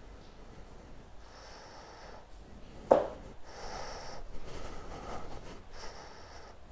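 Heavy breathing close to the microphone, a breath about every two seconds, with one sharp knock about three seconds in.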